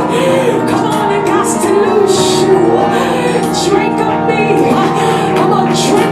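Church worship music: a voice singing over steady held chords.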